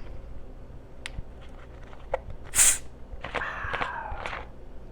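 A woman drinking Coke: a few faint clicks, a short hiss about two and a half seconds in, then a quick run of gulping swallows.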